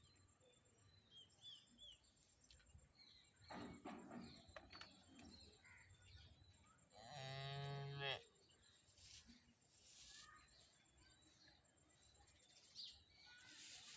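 A cow mooing once, a single call about a second long a little past halfway, with faint bird chirps early on.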